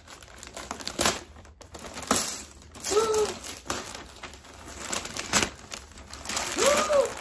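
Gift wrapping paper being torn and crinkled as a present is unwrapped, in irregular rustles with a few sharp rips. Two short hummed vocal sounds come about three seconds in and near the end.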